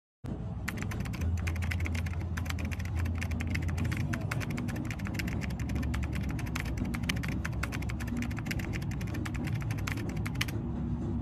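A steady low engine-like hum with a dense, rapid clicking rattle over it, which starts abruptly just after the cut; the clicking stops about ten and a half seconds in.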